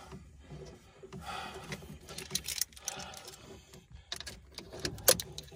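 Irregular small clicks, rattles and knocks of fishing pliers working at the hook in a snakehead's mouth, with the fish shifting against the boat floor. A sharper knock comes about five seconds in.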